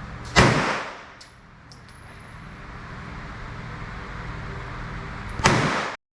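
Two gunshots about five seconds apart, each a sharp crack with a short echoing tail.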